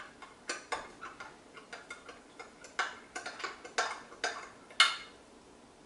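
A spoon clicking and clinking irregularly against the side of a container while stirring cocoa powder into cooking oil, stopping near the end.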